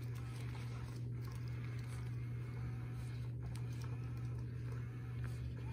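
Small electric motor of a battery-powered cat toy running steadily, a low hum as it swings a feather wand around.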